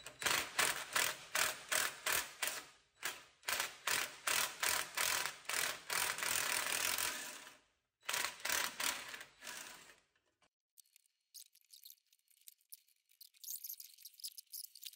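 Cordless power tool driven in quick repeated pulses, about three a second, working the stubborn starter mounting bolts loose; it stops about ten seconds in.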